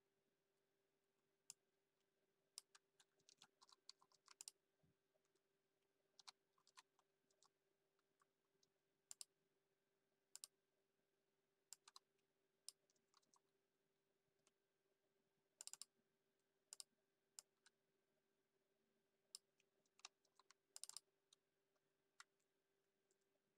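Faint computer keyboard typing: scattered key clicks in short irregular bursts.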